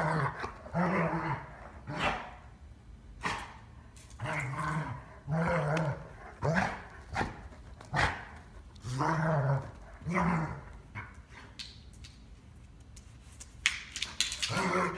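A dog giving a series of low, drawn-out barks, about ten in all, each roughly half a second long with short pauses between. A few sharp clicks come near the end.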